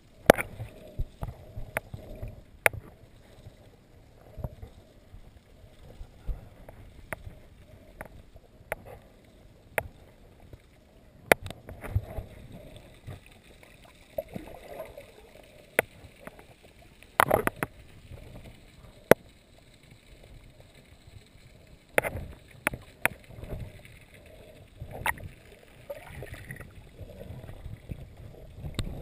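Muffled underwater sound from a camera held beneath the surface: low, uneven swishing of water moving past it, with scattered sharp clicks and knocks.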